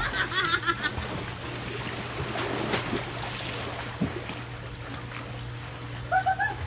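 Swimmers splashing across a swimming pool in a freestyle race, arms and kicking feet churning the water steadily. A brief high call is heard near the end.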